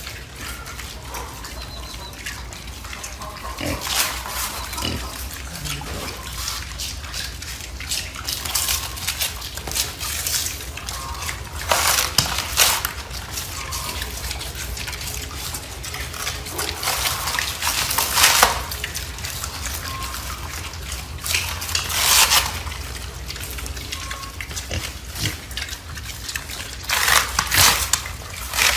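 Young wild boar pigs calling, with short noisy bursts several times over a steady low background hum, while they feed on chopped banana-tree stems.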